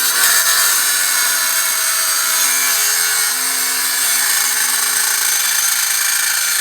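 Angle grinder with a cutoff wheel cutting through the old steel exhaust pipe: a loud, steady, hissing grind, with the motor's pitch shifting slightly as the wheel bites.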